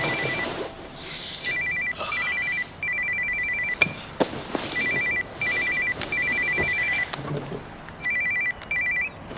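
Mobile phone ringing with a trilling electronic ringtone: repeated groups of rapid high beeps, each group about half a second to a second long with short pauses between.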